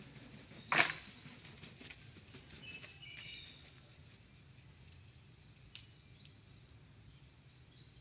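Quiet outdoor ambience with one short, sharp rustle or swish about a second in, the loudest sound. Faint chirps of small birds follow a few seconds in and again near the end, along with a few light ticks.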